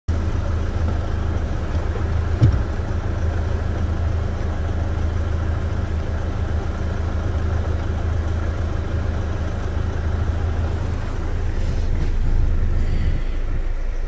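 Nissan Frontier pickup's engine idling steadily, heard from inside the cab while the clutch pedal is held down, with one short click about two and a half seconds in. The low hum drops off shortly before the end.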